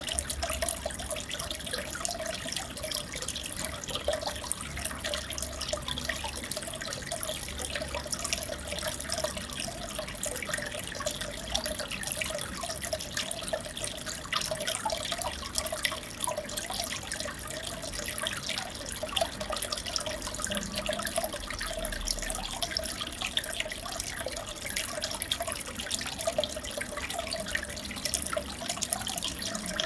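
Aquarium water trickling and bubbling steadily with many small drips and splashes, the sound of a tank's filter or aeration running.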